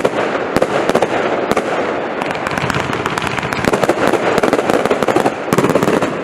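Lightning Storm compound firework cake firing a dense barrage: continuous crackling packed with many sharp cracks, which stops suddenly near the end.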